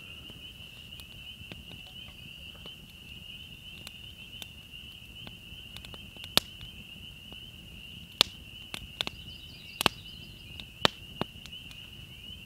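Spring peepers calling in a steady high chorus, with a campfire of balsam fir, spruce and cedar crackling in sharp pops, most of them from about six seconds in.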